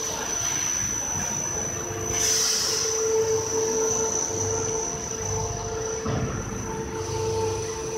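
Paper-pulp egg tray production line machinery running, its drying-line chain conveyor moving: a steady machine hum under a high steady whine, with a short hiss about two seconds in.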